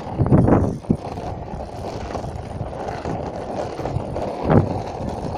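Penny board's plastic wheels rolling over rough asphalt with a steady low rumble, and a louder knock about four and a half seconds in.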